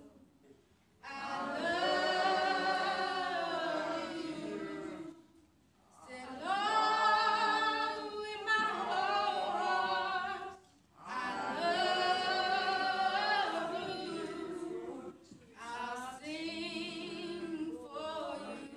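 A woman singing a gospel solo unaccompanied, in four long phrases with held, wavering notes and short breaks for breath between them.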